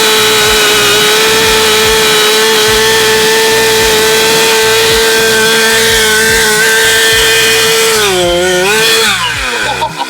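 Two-stroke petrol chainsaw at full throttle cutting into a holly tree trunk, its engine pitch holding steady for about eight seconds. Near the end the pitch dips briefly, then the throttle is let off and the engine winds down.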